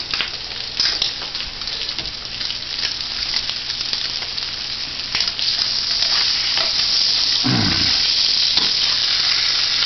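Fried eggs topped with Swiss cheese sizzling in a hot buttered frying pan, with a few short clicks and scrapes of the spatula in the first few seconds as the eggs are worked out of the pan onto toast. The sizzle grows louder about six seconds in, and a brief low sound comes about seven and a half seconds in.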